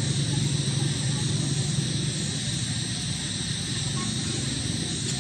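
Steady outdoor background noise: a low hum under a constant high hiss, with no distinct events.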